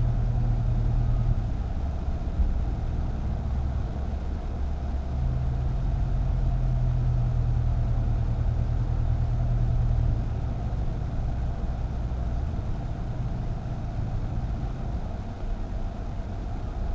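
A car being driven: a steady low engine and road rumble whose pitch steps up and down a few times, a little quieter after about ten seconds.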